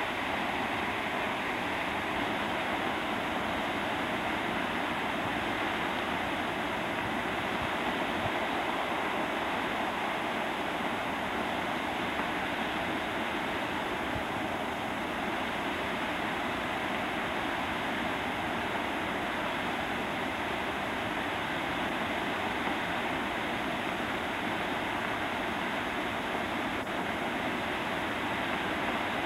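Water jetting from the outlet valves in the face of Arrowrock Dam and plunging into the river below: a steady, unbroken rush.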